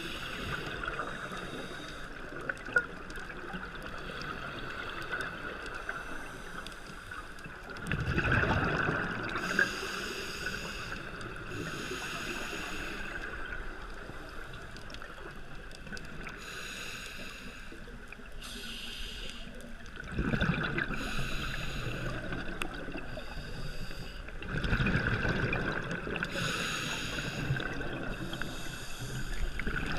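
Scuba diver breathing through a regulator underwater, picked up by the camera: short hissing inhalations every few seconds, and louder rumbling bursts of exhaled bubbles about eight, twenty and twenty-five seconds in.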